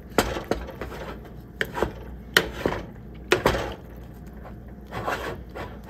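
A wooden spatula stirring thick polenta in a stainless steel saucepan, knocking against the pan's sides at irregular intervals, with a softer scrape near the end.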